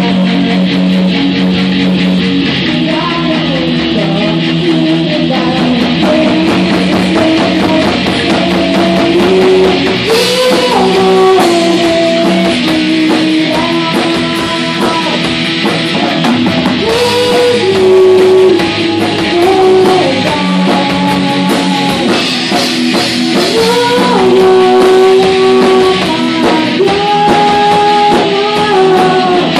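Rock band playing live: electric guitars through amplifiers over a drum kit, loud and continuous, with a melody line that slides and bends over the chords.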